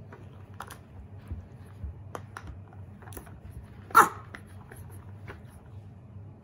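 Shiba inu puppy giving a single short bark about 4 s in, a warning bark at a lint roller it is half afraid of. A few faint clicks sound before and after it.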